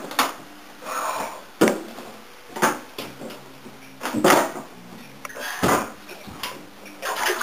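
Movement and handling noise as someone walks with a handheld camera: a string of short rustles and bumps, roughly one a second.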